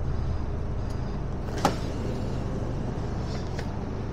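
Truck's diesel engine idling steadily, heard from inside the cab as a low rumble, with one sharp click about a second and a half in.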